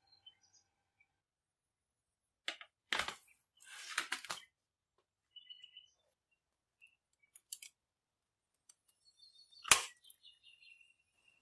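A few sharp clicks and knocks, the loudest a single knock near the end, with faint short bird chirps in between.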